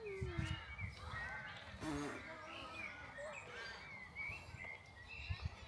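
Birds chirping and calling: a scatter of short, high rising and falling notes throughout.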